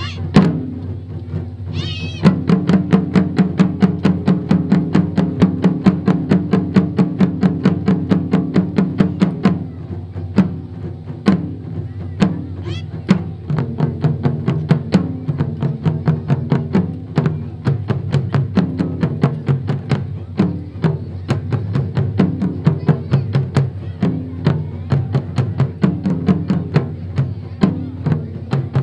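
Japanese taiko barrel drums played by an ensemble with wooden sticks: a fast, even stream of strokes, heaviest in the first third and a little lighter after. A few short shouted calls cut through near the start and again about halfway.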